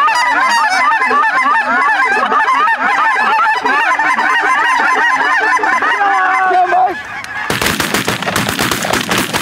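A big flock of lesser Canada geese calling overhead, many calls overlapping into a continuous chorus that breaks off about seven seconds in. A loud burst of rustling and knocking clatter follows to the end.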